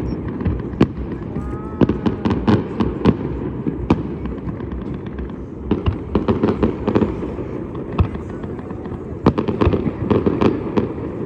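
New Year's fireworks going off: many sharp pops and crackles in repeated clusters over a constant low rumble.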